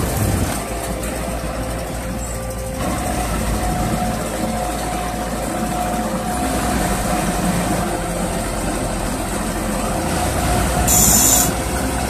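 Tractor engine running steadily under load as it pulls a mini round baler that is picking up and baling straw. Near the end comes a brief burst of hiss.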